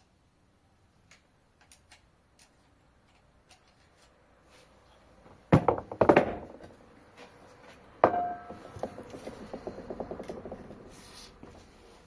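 Metal parts knocking together during a manual gearbox teardown: a few light clicks, then two loud knocks in quick succession a little past the middle. Another knock about two thirds through rings briefly, followed by a few seconds of quick rattling that fades.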